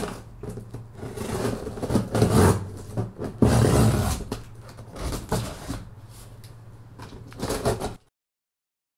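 Scissors slicing packing tape on a large cardboard box, then scraping and tearing of cardboard as a strip is pulled back, over a steady low hum. It cuts off abruptly about eight seconds in.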